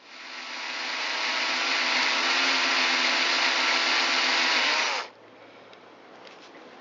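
Electric hand drill running steadily with a small 1/16-inch bit, drilling out a broken steel allen bolt seized in aluminum. It builds up over the first second and stops about five seconds in, its pitch dropping slightly as it winds down.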